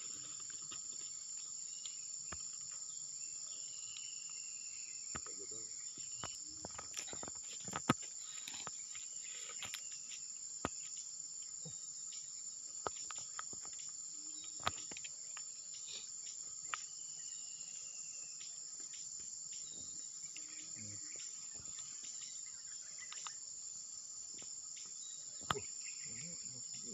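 Steady, high-pitched chorus of insects such as crickets, with scattered clicks and rustles of handling or footsteps; the sharpest knocks come about 8 seconds in and near the end.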